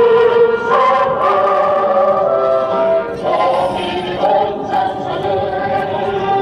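Many voices singing a song together, with long held notes.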